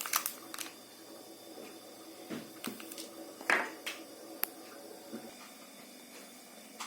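Scattered light clicks and taps of small objects being handled, with a louder knock about three and a half seconds in.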